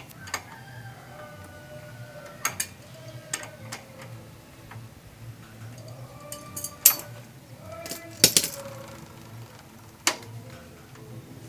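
Sharp metallic clinks and clicks of a hand tool working the motorcycle's rear axle nut and chain adjuster while the axle is being centred. The clinks come as a handful of separate strikes, with the loudest about seven and eight seconds in.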